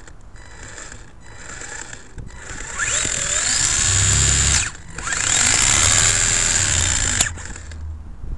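Electric motor and drivetrain of an Ansmann SC4 radio-control short-course truck spinning up hard with a rising whine, twice. Each burst cuts off suddenly, the first about two and a half seconds in and the second around seven seconds. Before them the truck runs more quietly with rough rattling.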